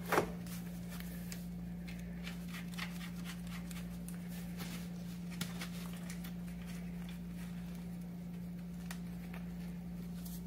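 Scattered light clicks and taps of metal parts being handled as an electric scooter's rear hub motor and axle are fitted back into the swingarm by hand, with one sharper click just after the start. A steady low hum runs underneath.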